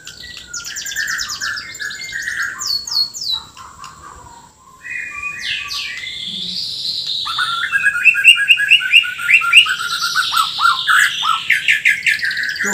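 Caged Bornean white-rumped shama singing a loud, varied song full of rough, harsh fill notes. Quick trills and whistled phrases come first, then a short pause about four seconds in, then a fast run of repeated notes.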